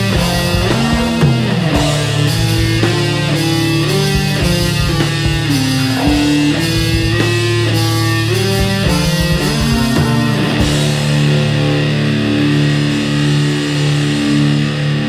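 Grunge punk rock band playing: electric guitars and bass on a riff over drums. About ten seconds in the drums drop away and the guitars hold longer repeated notes.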